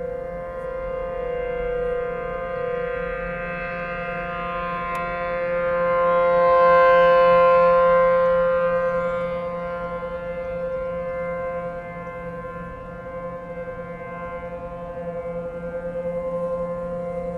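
ACA P-10 electromechanical outdoor warning siren sounding a steady alert tone, one unchanging pitch. The sound swells to its loudest about seven seconds in and then fades as the rotating siren head sweeps past and turns away.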